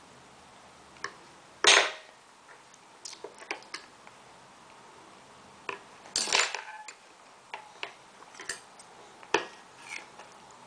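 Metal forks tapping, clattering and scraping on a plastic high-chair tray as a toddler bangs them down, in scattered clicks with two louder clatters, one about two seconds in and one just past the middle.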